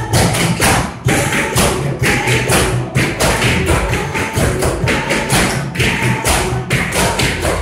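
Tap shoes of a group of dancers striking a wooden floor in quick, rhythmic taps, over recorded music with a steady beat.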